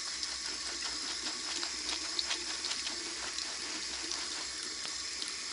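Tap water running steadily into a sink, with many small wet squishing crackles as a soapy bath pouf is worked into a lather.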